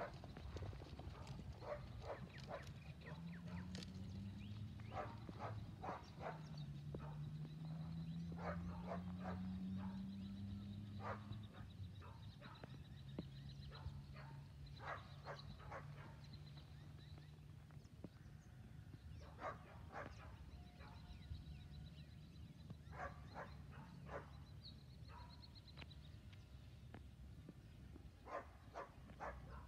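Faint dog barking in short bouts of a few barks each, separated by pauses. In the first half, a low hum rises slightly in pitch under the barking.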